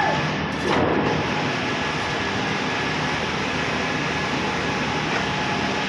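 Heavy machinery running with a steady drone, with a short falling squeal about a second in.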